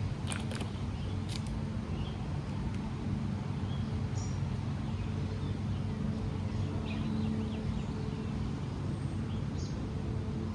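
Steady low hum like distant motor traffic, with a few short bird chirps about four, seven and nine and a half seconds in, and a couple of sharp clicks in the first second or so.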